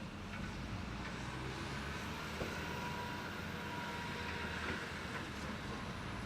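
Caterpillar 325C excavator's diesel engine running steadily under hydraulic load, with a faint whine and a few light knocks from the sheepsfoot compactor wheel working the ground.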